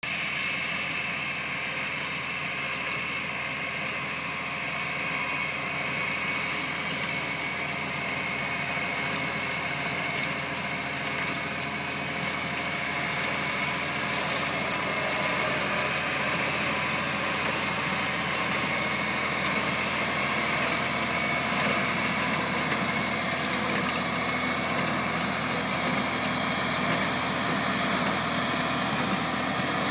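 John Deere 4020 tractor's six-cylinder engine running steadily while driving a John Deere 214W square baler, the two machines running together.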